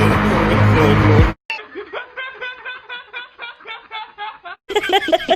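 Loud music cuts off about a second in, followed by a person laughing in short rhythmic bursts, with louder laughter starting near the end.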